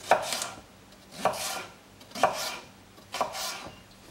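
Chef's knife cutting through celery sticks on a wooden chopping board: four separate cuts, about one a second.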